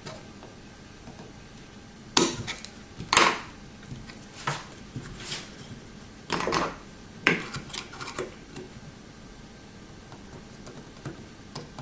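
Metal-tipped hand tool and soldering iron clicking, tapping and scraping against a circuit board and its component leads while through-hole diodes are desoldered and pried loose: a string of irregular sharp clicks and knocks, loudest about two and three seconds in and again around six to seven seconds in.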